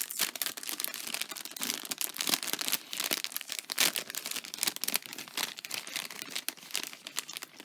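Packaging of craft pieces crinkling and crackling as it is handled, a dense run of small irregular crackles throughout.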